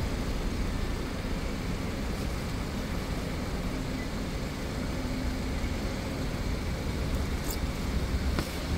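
Heavy rain on a city street with traffic running: a steady, even hiss of rain over the low rumble of passing vehicles, with a couple of faint clicks near the end.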